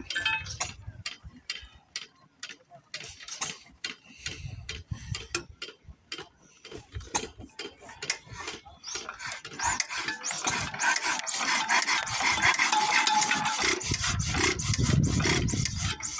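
Old John Deere hit-and-miss stationary engine being worked and turned over by hand, its mechanism clicking and clattering. The clatter grows louder and busier about ten seconds in.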